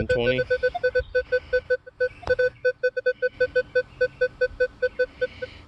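Minelab Equinox 600 metal detector sounding its target tone as an Indian head cent is swept past the coil in an air test: rapid short mid-pitched beeps, about seven a second, for a target ID of about 19–20. There is a single knock about two seconds in.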